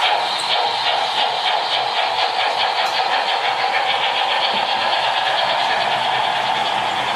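H0-scale model freight train running past behind a steam locomotive: a steady electric hum with rapid, even clicking of the wheels over the track.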